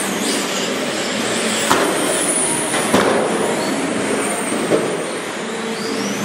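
Radio-controlled race trucks running laps on an indoor track: a steady hiss of motors and tyres with thin high whines that rise in pitch as they accelerate, and two sharp knocks about two and three seconds in.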